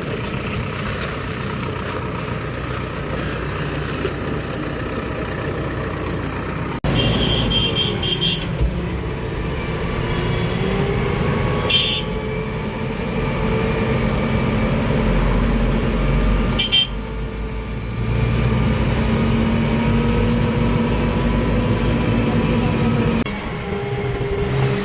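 Diesel engines of JCB 3DX backhoe loaders and tractors running steadily, with a few brief high-pitched toots.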